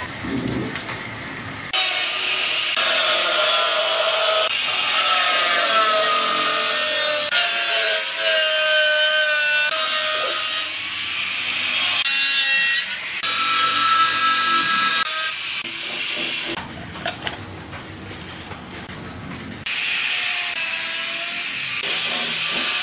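A corded electric drill runs briefly, then a Makita angle grinder cuts into the sheet-steel wall of an oil drum, its whine wavering in pitch as the disc bites. The grinder stops for about three seconds and starts cutting again near the end.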